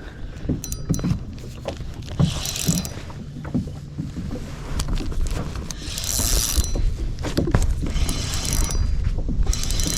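Fishing reel being cranked as a hooked bass is played from a kayak, with scattered knocks and several short splashy hisses. A low wind rumble on the microphone grows in the second half.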